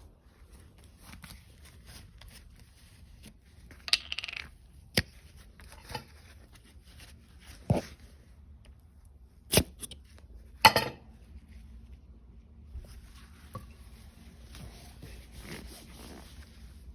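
Handling noises as the foam air filter is made ready for oiling: a few separate sharp clicks and knocks of small objects set down and picked up, with a short rustle about four seconds in.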